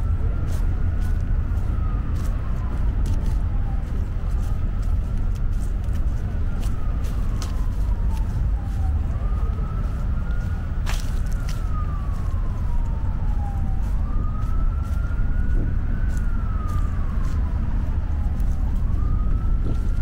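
Emergency vehicle siren wailing, its pitch rising and then falling slowly in cycles about every five seconds, over a steady low rumble of street noise.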